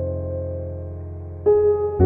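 Background music on a keyboard: held piano-like notes slowly fade, and a new chord is struck about one and a half seconds in.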